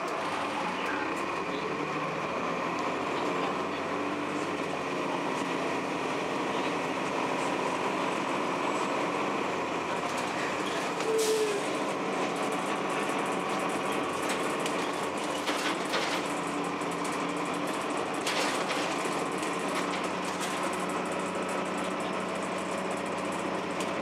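Cabin of a 2002 Blue Bird CS transit bus under way: the Cummins ISC diesel and Allison B400R transmission running with a steady drone and a few held tones, over rattling from the body and fittings. A few sharp knocks stand out, one near the middle and several a little later.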